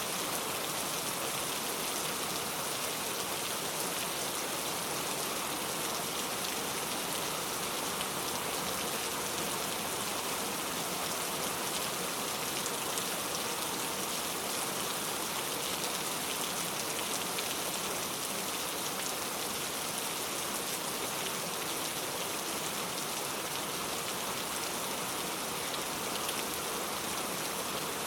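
Heavy rain falling steadily on a road surface, a dense, even hiss of drops with no thunder.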